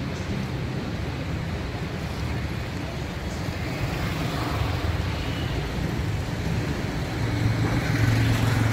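Steady outdoor rumble with wind buffeting the microphone. A low hum grows louder near the end.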